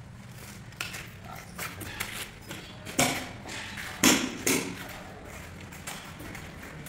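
Dull knocks and thuds as a large 80x160 cm porcelain floor tile is handled and set with suction-cup lifters; the two loudest come about three and four seconds in.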